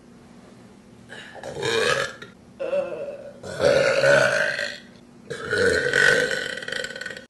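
A young woman burping loudly: a string of about four long burps, each one to two seconds, starting about a second in.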